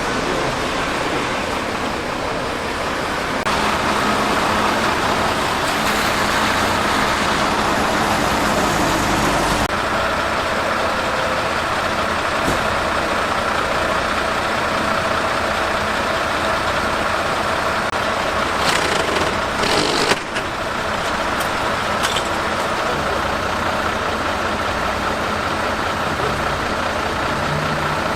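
A fire engine's engine running steadily, with continuous vehicle noise and no siren.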